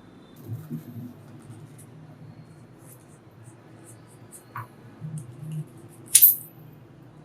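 Light scratching and clicking of handwork on wine cork, with one louder scrape about six seconds in, over a low steady hum.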